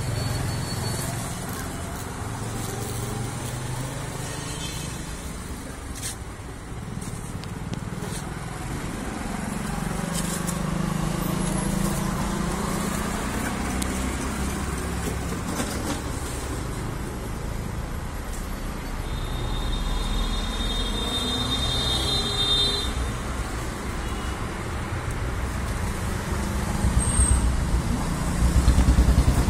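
Steady road traffic, with vehicles passing and a horn tooting about two-thirds of the way in.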